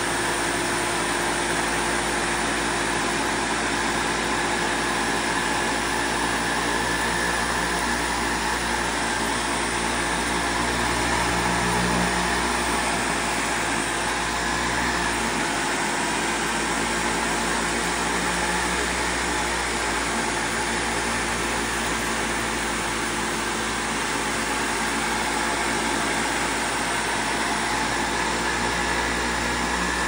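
Windsor Versamatic commercial upright vacuum cleaner running steadily as it is pushed over a rug, a constant motor tone over rushing air.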